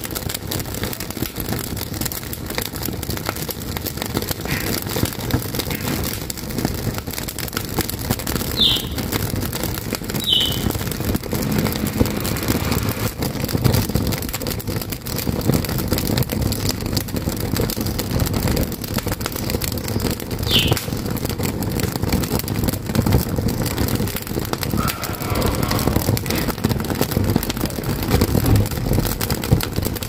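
Wood fire burning in the firebox of a wood-burning stove: a steady low rush of flames with frequent crackles and pops from the burning wooden slats. A few short high chirps are heard now and then.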